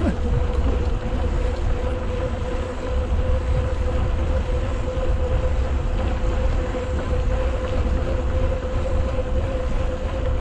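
Wind rushing over the microphone of a moving bicycle, with a steady low rumble and a thin steady tone underneath.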